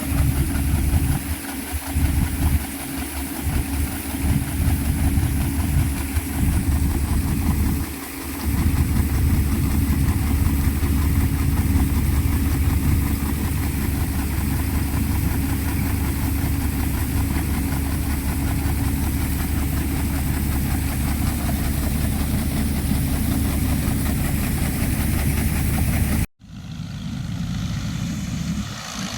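Engine of harvesting machinery running steadily with a deep rumble. It cuts out abruptly about 26 seconds in, then carries on more quietly.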